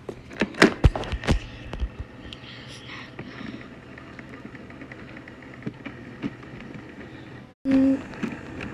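A plastic electronic alphabet learning toy handled at close range: clicks and knocks of button presses and handling in the first second and a half, with a steady hiss. Near the end there is a short electronic beep.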